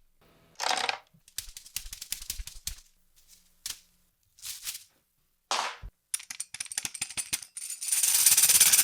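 A string of separate short sound effects with gaps between them: brief bursts of noise, fast runs of rattling clicks, and a longer, louder rush of noise near the end.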